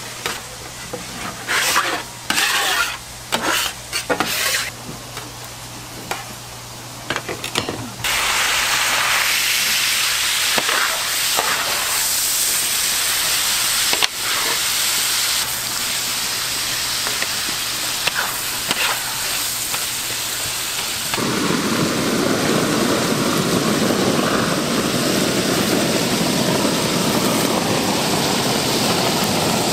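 Pork offal sizzling on a hot grill, with a utensil scraping and clacking against it in short strokes for the first several seconds. The sizzling then runs steadily and grows fuller and louder about two-thirds of the way in.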